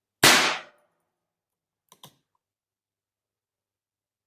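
A single shot from a Pietta 1858 Army Target .44 percussion revolver firing a light gallery load of 5 grains of Pyrodex P behind a swaged round ball: one sharp report that dies away within about half a second. About 1.7 seconds later come two faint clicks.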